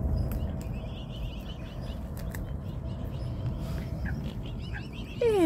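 Faint, high, twittering bird chirps over a low rumble, ending in a loud call that slides down in pitch.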